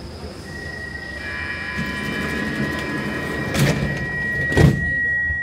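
Stockholm metro train's door-closing warning: a steady high tone sounds from about half a second in, over the train's low rumble, with two sharp thumps near the end as the sliding doors shut.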